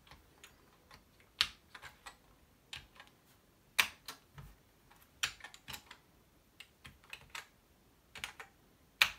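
Keys being typed on a Commodore Plus/4 computer keyboard: irregular, scattered key clicks as the LIST and RUN commands are entered.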